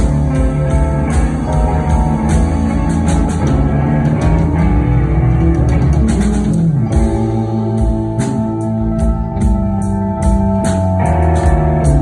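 Live blues band playing: electric guitars, bass guitar, drum kit and keyboard.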